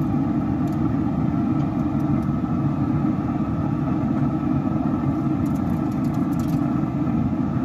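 Steady low rumbling noise throughout, with a few faint light clicks of metal tongs setting short ribs down on a steel grill grate.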